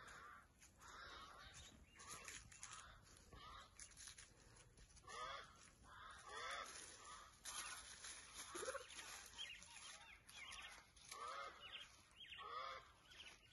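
Cheetahs chirping: short calls that rise and fall in pitch, repeated about once a second. Dry leaves crackle faintly underfoot.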